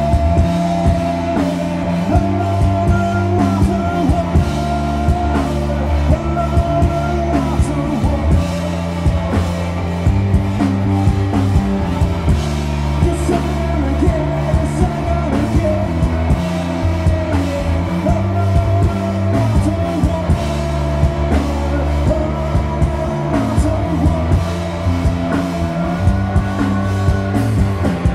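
A rock trio playing live: distorted electric guitar, bass guitar and a drum kit, with a sung vocal over them.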